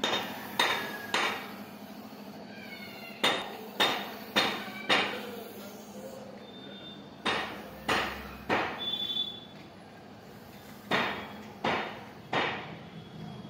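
Hammering: sharp blows struck in runs of three or four, a little over half a second apart, with pauses of two to three seconds between runs.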